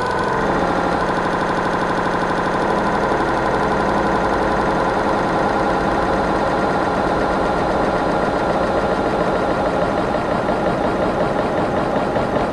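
Granular-synthesis electronic texture: a dense, steady drone built from rapidly repeating tiny grains of sound, with a fast flutter throughout.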